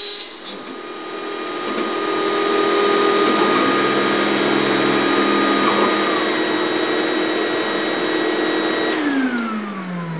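ShopBot Desktop CNC router cutting out a walnut plaque, its spindle running steadily with the dust-collection vacuum drawing through the dust shoe. About nine seconds in, a motor spins down with a falling pitch as the cutout pass ends.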